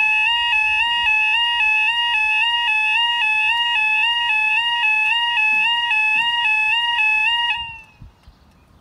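A UK level crossing's electronic two-tone 'yodel' warning alarm, stepping rapidly between two pitches while the barriers lower. It cuts off suddenly about seven and a half seconds in, as the barriers come to rest across the road.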